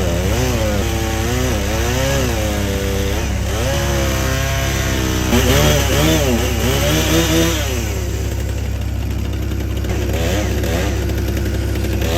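Chainsaw running and cutting, its pitch rising and falling over and over as the revs change. About eight seconds in it settles into a steadier, slightly quieter run.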